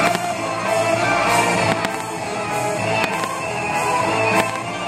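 Loud music playing through a fireworks display, with a few sharp firework bangs over it.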